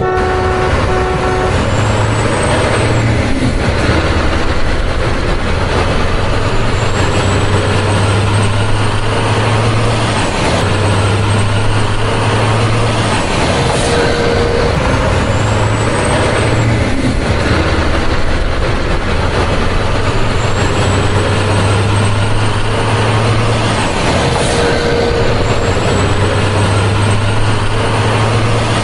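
Heavy truck engine running, a loud steady rumble with a low hum that swells and drops back every few seconds. It is a recorded truck sound laid over the toys, not the hand-moved plastic toys themselves.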